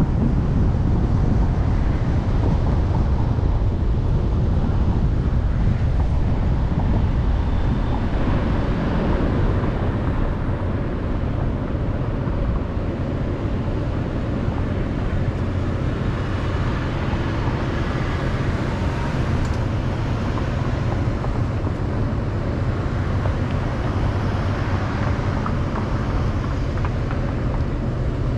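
Car driving, with a steady low rumble of road and wind noise. After about ten seconds it eases to a slightly quieter steady hum as the car sits stopped at a red light.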